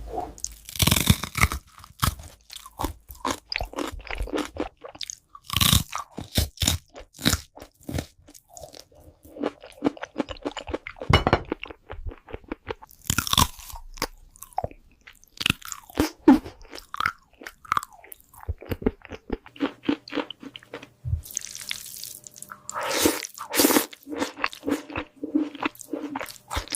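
Close-up eating sounds: crunchy food being bitten and chewed, with irregular loud crunches between quieter chewing and mouth noises.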